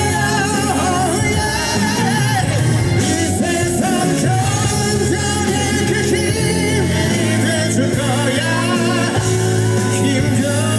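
Male singer belting a rock ballad live over band accompaniment, his voice wavering with vibrato above steady bass notes.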